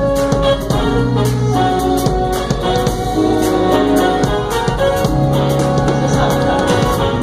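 Electronic keyboard played live: held chords and melody notes changing every second or so, over a steady drum beat.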